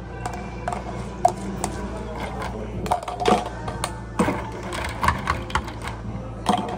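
Irregular clicks and knocks of a long spoon and ice against a plastic drink cup as a mango yogurt drink is stirred, over a steady low hum.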